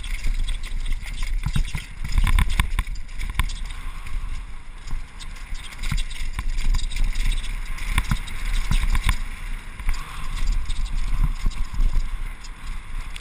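Action-camera audio of a Specialized Demo downhill mountain bike, ridden without chain or rear derailleur, descending a rough dirt trail at speed: continuous wind buffeting on the microphone with rattles and knocks from the bike and tyres over bumps and stones.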